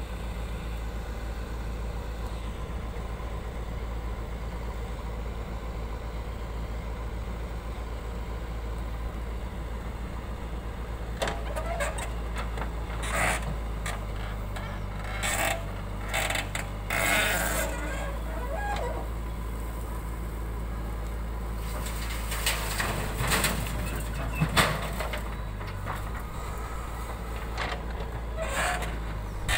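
Diesel engine of a JCB 3DX backhoe loader running steadily while it digs earth. From about eleven seconds in, irregular short, sharper sounds come and go over the engine.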